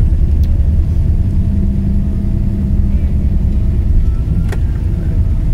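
Inside the cabin of a wide-body jet airliner during its landing rollout, spoilers up: a loud, steady low rumble of engines and wheels on the runway. A single sharp click sounds near the end.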